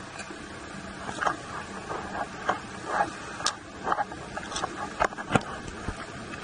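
Footsteps wading through ankle-deep seawater, a sloshing splash about twice a second over a steady background hiss.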